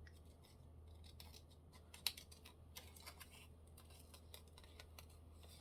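Small craft scissors snipping faintly around a paper cut-out: a string of soft, short snips, one a little sharper about two seconds in, over a low steady hum.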